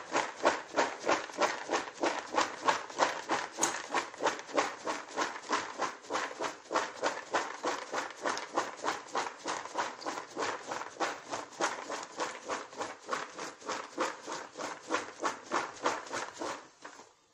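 Cooked groundnuts (peanuts) rattling and swishing in a plastic bowl as it is shaken and swirled to coat them, in a steady rhythm of a few shakes a second that stops near the end.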